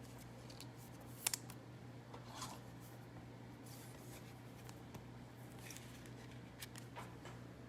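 Faint handling of trading cards and packaging: a few small clicks and light rustles, over a low steady hum.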